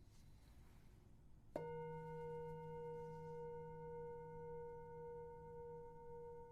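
A metal sound-healing instrument struck once about a second and a half in, then ringing on in one steady tone with several fainter overtones above it.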